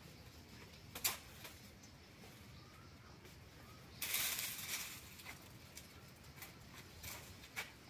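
Quiet handling of cut herbs: a sharp click about a second in, a short rustle about four seconds in, and two light clicks near the end.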